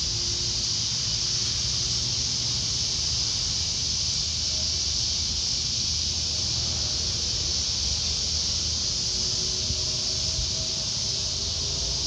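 A chorus of cicadas singing loudly as one steady, unbroken high buzz, with a low rumble underneath.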